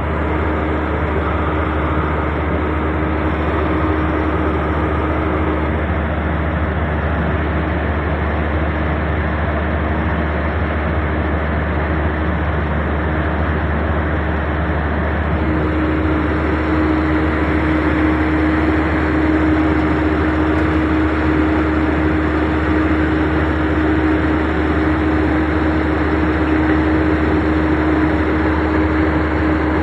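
Deutz BF6M 1013 turbocharged six-cylinder diesel engine running steadily, with a heavy low drone and a steady hum that grows stronger about halfway through.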